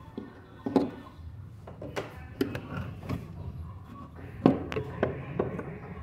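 Irregular sharp clicks and knocks of a screwdriver, screws and parts being handled against the plastic and metal of a washing machine's transmission and pulley as it is unscrewed.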